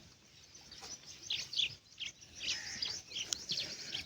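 Small birds chirping: a run of short, high chirps that starts about a second in and grows busier over the second half.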